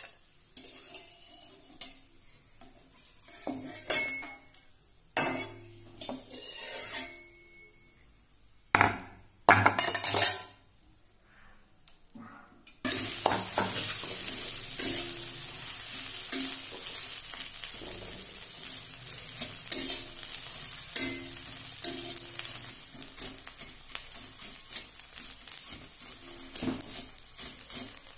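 Metal spatula scraping and clinking against an iron kadai and a steel plate while fried fryums are lifted out, with a louder clatter about a third of the way in. About halfway through, a fresh batch of fryums goes into the hot oil and a steady loud sizzle starts suddenly, with the spatula stirring and scraping through it.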